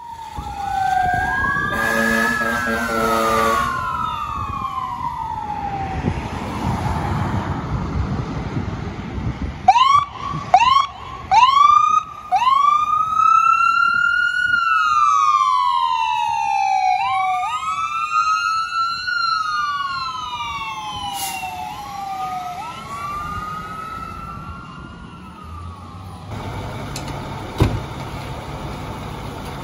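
Fire engine siren wailing in long rising-and-falling sweeps, with a horn blast about two seconds in and a burst of short quick yelps around ten seconds. The siren fades out in the last several seconds, leaving quieter street noise.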